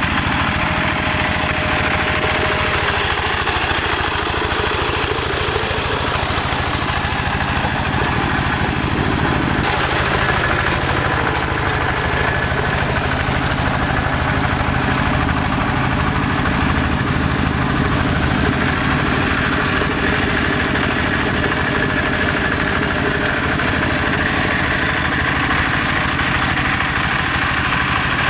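Quick G1000 two-wheel hand tractor's diesel engine running steadily with a fast, even chug as it pulls through paddy mud; the sound changes a little about ten seconds in.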